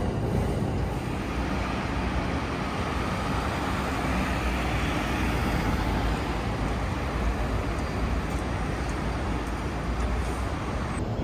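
Steady road-traffic noise: cars and buses running along a busy multi-lane city street, with no single vehicle standing out.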